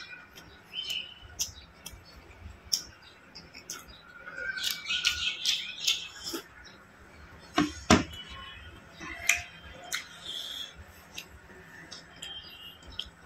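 Close-up eating sounds: a man chewing fried rice eaten by hand, with wet mouth clicks and lip smacks, and gulping sounds as he drinks water from a glass. Two sharp knocks come close together about eight seconds in.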